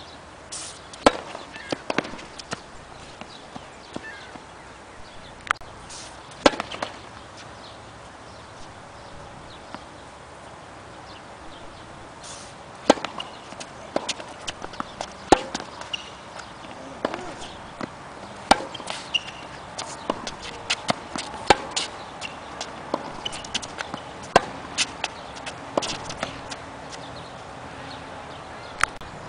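Tennis balls being struck by rackets and bouncing on a hard court during rallies: a string of sharp pops, with a lull partway through between points.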